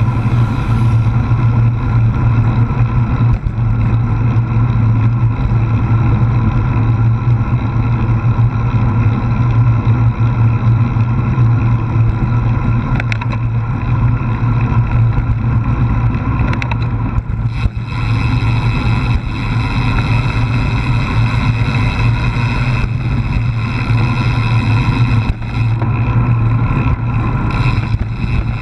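Steady rush of wind and road rumble picked up by an action camera mounted on a moving road bicycle, loud and low throughout. It turns brighter and hissier a little past halfway.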